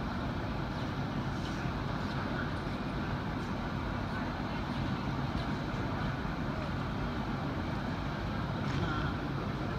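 Steady low rumble of background noise in a large indoor arena, with faint distant voices.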